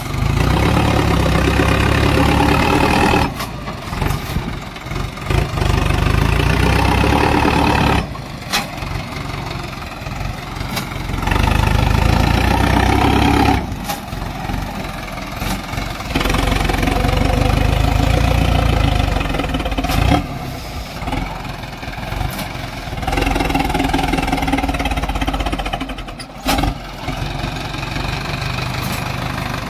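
Sonalika DI 750 tractor's diesel engine labouring under load as the tractor climbs a steep sandy slope. Its sound swells and drops every few seconds.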